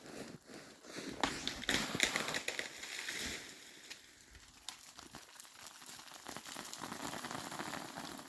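Ice shaken loose from branches pattering and crackling down through the trees onto a hard, icy snow crust, many small clicks running together, heaviest from about a second in to three and a half seconds in.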